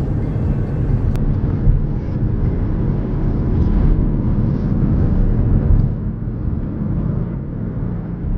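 A car driving: a loud low rumble of engine and road noise that begins abruptly and swells and eases slightly.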